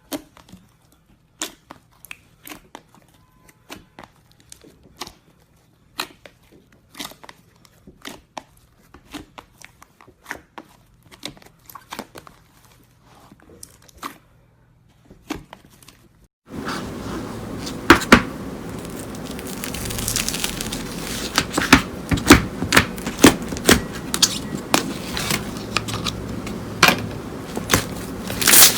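Slime being handled by hand. At first there are scattered sharp crackles and pops; then, about sixteen seconds in, a louder, denser run of crackling and crunching starts over a steady background hiss.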